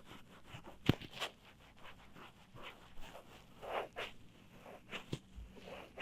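ASMR ear massage: fingers rubbing and kneading the microphone's ears in irregular scratchy strokes. There is a sharp bump about a second in and another near five seconds.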